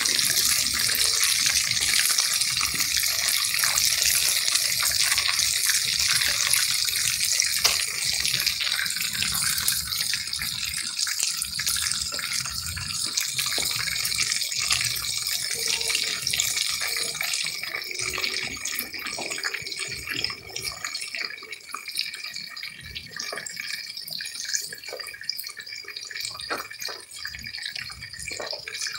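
Bluefish pieces shallow-frying in a pot of hot oil: a dense, steady sizzle full of small crackles. It grows somewhat quieter during the last third.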